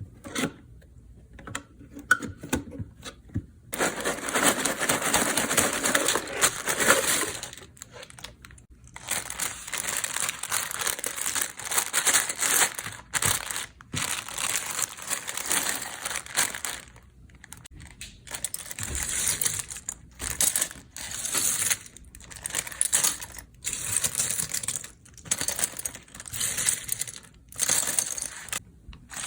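A run of LEGO handling sounds. First a cardboard LEGO box is opened with a few light clicks, then plastic bricks are poured out in a dense rattling rush. Next the plastic bags crinkle and tear open, and finally loose bricks clatter in short bursts as they are sorted by hand.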